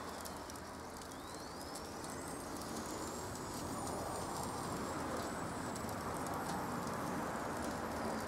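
Fish-paste chikuwa grilling over charcoal on a wire grill: a steady sizzle with fine crackling from the coals, and a faint high whistle that rises and then holds in the background. The sizzle cuts off abruptly at the very end.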